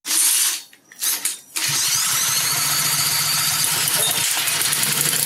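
Honda GC160 single-cylinder engine on a pressure washer being started by pull-start after a prime of fuel down the spark plug hole. It gives two loud bursts, then catches about a second and a half in and runs steadily.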